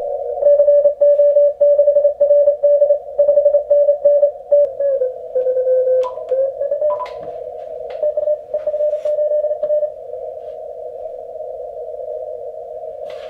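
Morse code (CW) from an Icom IC-7300 HF transceiver's speaker: several stations keying at slightly different pitches inside a narrow band of filtered hiss. About five seconds in the tone slides down and back up. The keying stops about ten seconds in, leaving only the steady hiss.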